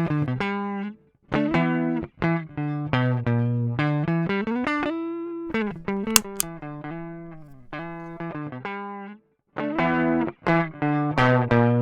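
Electric guitar playing chords through a JHS 3-Series Screamer overdrive pedal, a mid-boosted, lightly driven tone. The chords ring and change, some with bends in pitch, and stop briefly a few times.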